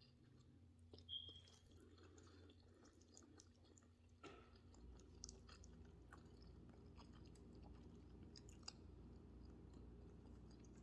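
Faint chewing and small mouth clicks of a person eating noodles.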